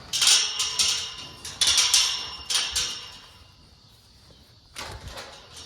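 Metal gate or door rattling and clanging as it is moved, in bursts: three clusters in the first three seconds and another near the end.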